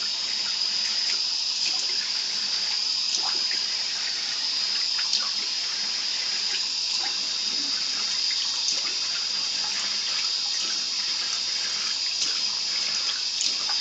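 Tap water running steadily from a faucet into a sink, with small splashes as a baby's head is rinsed under the stream and rubbed with a gloved hand.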